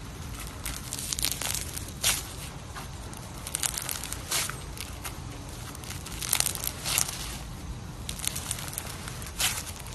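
Slime being squished and worked by hand, giving irregular clusters of wet clicks and pops.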